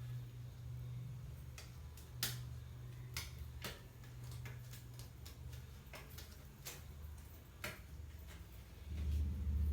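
Disposable examination gloves being pulled on and fitted, giving irregular sharp clicks and snaps over a steady low hum.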